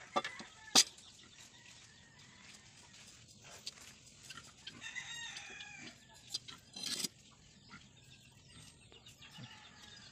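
Chickens clucking and a rooster crowing, faint, with a few sharp knocks, the loudest about a second in and again about seven seconds in.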